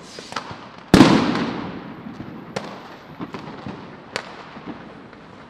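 Battle sound effect: one heavy explosion about a second in, dying away in a long rumbling tail, with single sharp gunshot cracks going off here and there.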